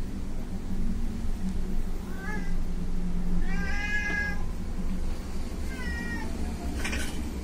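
Cat mewing: three short high-pitched calls, the middle one longest and loudest. A single click comes near the end.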